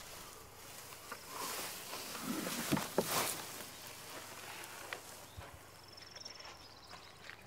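Dry hay rustling as a man pushes up out of a hay-loaded cart, swelling for a couple of seconds with a few sharp knocks about three seconds in. A faint high trill follows near the end.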